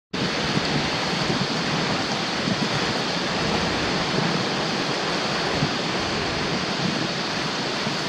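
Typhoon wind and driving rain: a steady, loud rush of noise, with gusts rumbling against the microphone.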